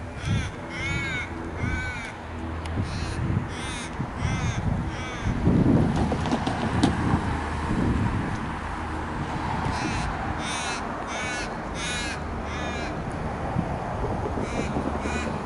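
A bird giving runs of short, harsh calls in two bouts, one at the start and one about ten seconds in, over a steady low background rumble that swells briefly around six seconds.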